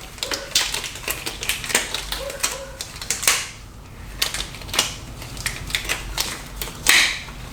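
A quick, irregular series of clicks and taps, several a second, with a couple of louder knocks: small objects being handled.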